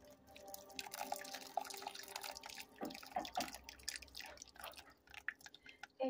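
Water poured slowly from a cup into a drip coffee maker's filter basket, trickling and dripping onto wet coffee grounds. Faint, with many small irregular splashes.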